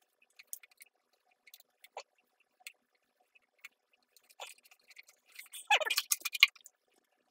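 Hands handling a hard plastic RC car body and small sticker pieces: scattered light clicks and taps, then a brief, louder clatter of plastic rubbing and knocking about six seconds in.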